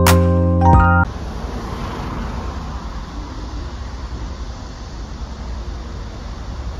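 Keyboard music that stops abruptly about a second in, followed by the steady rushing road and wind noise of a car driving at speed on a highway.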